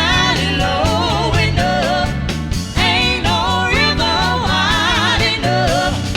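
Live soul band playing a song, with a wavering lead melody line over a steady bass line and drums.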